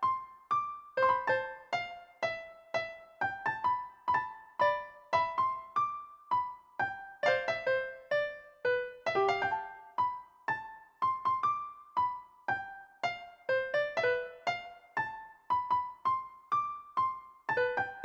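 Background music: a gentle tune played on an electric piano or keyboard, single struck notes ringing and fading one after another, about two to three a second.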